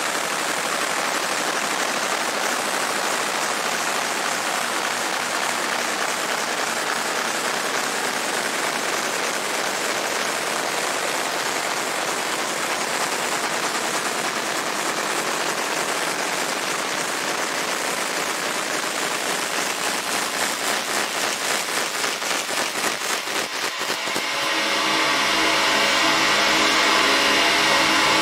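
Machinery running in a fiber laser engraving setup: a steady fan-like rush that flutters rapidly for a few seconds, then, about three-quarters of the way through, gives way to a louder motor hum with a steady pitch.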